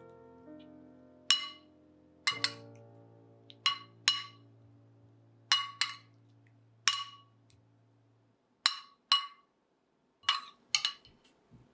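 Metal spoon clinking against a ceramic bowl while potato balls are tossed in sauce: about a dozen sharp, ringing clinks at uneven intervals, several in quick pairs.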